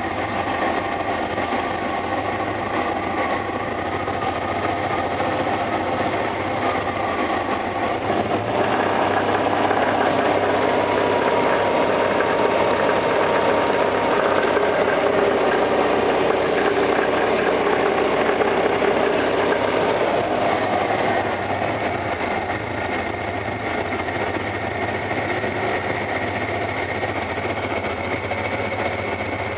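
Car engine running with a knock in it. It runs steadily, grows louder about a third of the way through and settles back about two-thirds through.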